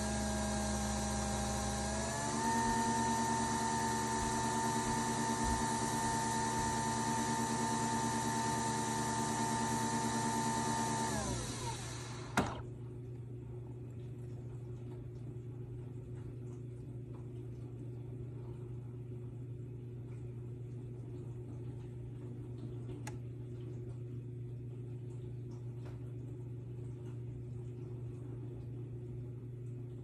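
Nespresso Vertuo coffee machine brewing, its motor spinning the capsule with a steady pitched whir that steps up in pitch about two seconds in. Near the middle the whir winds down and stops with a single click, leaving only a low steady hum.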